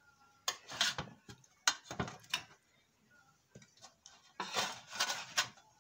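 Light clatter of kitchen utensils against dishes: a run of short clinks and knocks in the first couple of seconds, then another cluster near the end.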